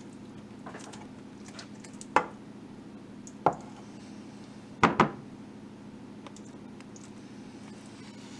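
Spatula scooping refried beans from a can and dabbing them onto ground meat in a glass baking dish: soft scraping and squishing, with four sharp knocks of the spatula, the last two a close pair and the loudest, about five seconds in, over a faint steady hum.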